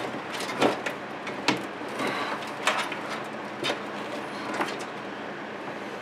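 Thick power-supply cables rustling and scraping as they are pulled through the back of a PC case, with scattered light clicks and knocks about once a second.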